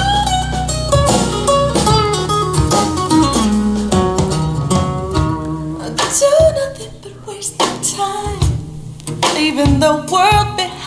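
Recorded song with singing and guitar playing through Wilson Audio Sabrina floor-standing loudspeakers.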